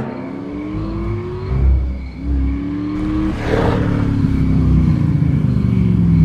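Car engine revving up through two gears, each rising climb cut short by a gear change, then a long fall in pitch as it slows. A brief rushing noise comes in about three and a half seconds in.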